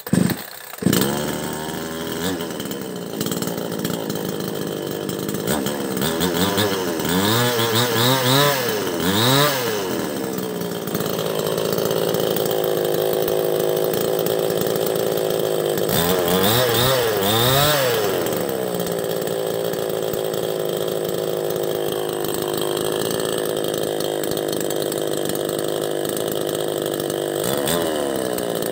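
Maestro CS6500L two-stroke chainsaw engine, fitted with a new cylinder and piston in place of a scored set, catching on the pull cord and then running. It idles with quick throttle blips, a few about seven to ten seconds in and a couple more around sixteen to eighteen seconds. Another rev begins near the end.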